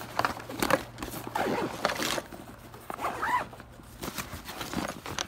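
Zipper being pulled closed on a nylon backpack, with the fabric and webbing rustling and a few short scrapes and knocks as the pack is handled.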